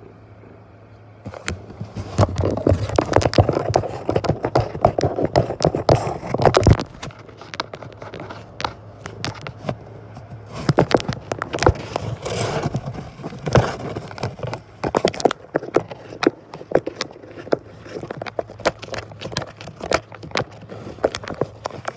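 Scratching and scraping on cardboard right against the microphone, in bouts of dense sharp clicks and rustles that start about a second in, ease off around the middle, pick up again, then thin out to scattered clicks. A faint steady low hum lies underneath.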